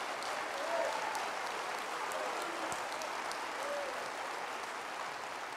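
A church congregation applauding steadily, with a few voices calling out over the clapping.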